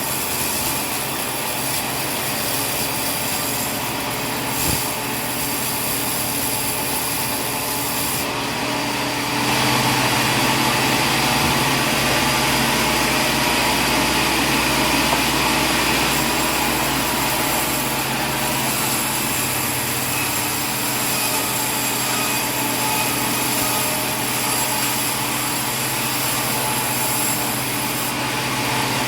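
Sawmill machinery running steadily with a dense mechanical noise, growing louder about nine seconds in, as if a cut or feed begins.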